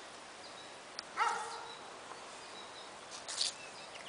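A short animal call a little over a second in, then a brief harsh, hissy sound a little after three seconds, both faint over a steady outdoor background.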